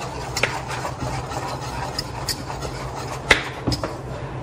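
A kitchen knife striking a cutting board while carrots are chopped: a few separate chops, two close together past the middle, over a steady low hum.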